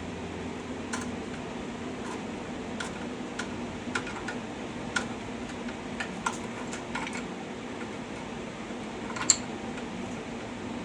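Scattered metallic clicks and clinks of a hand wrench working a bolt loose, turned a little at a time, with one sharper clank about nine seconds in. A steady low hum runs underneath.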